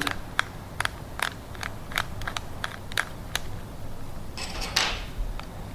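Precision Phillips screwdriver turning out a tiny screw on a handheld game console's battery cover: a run of light clicks, about two or three a second, then a short scraping rustle about a second before the end.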